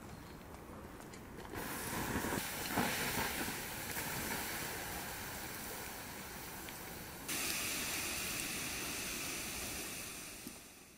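Water poured from a kettle onto a campfire's hot embers, hissing loudly as it turns to steam. The hiss starts suddenly about a second and a half in, changes to a thinner, higher hiss about seven seconds in, and fades away at the end.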